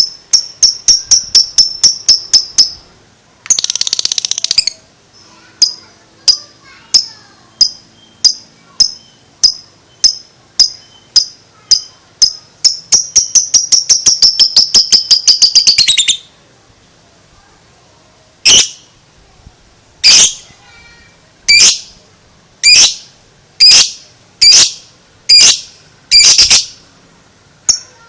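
Lovebird giving its 'ngekek' chatter: long runs of shrill, evenly repeated chirps that speed up into a fast trill and stop about 16 seconds in. After a short pause come single sharp calls about once a second.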